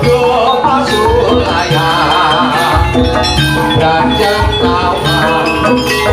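Loud live jaranan (kuda lumping) music: drums keep a steady beat under melodic instruments, with a wavering held note about two seconds in.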